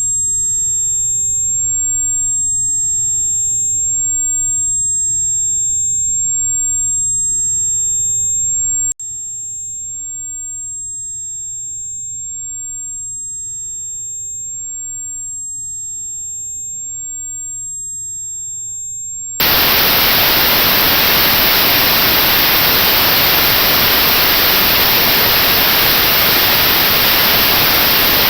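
A steady, very high-pitched pure test tone, with fainter tones of other pitches and a low hiss under it for the first nine seconds, after which the tone carries on alone and quieter. About two-thirds of the way through it gives way to loud notched white noise: an even hiss with a narrow band removed at about the pitch of that tone, as used in tinnitus sound therapy.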